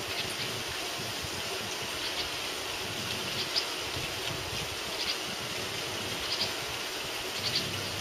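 Short, high chirps of a juvenile bulbul, about five of them roughly every second and a half, over a steady hum of city traffic.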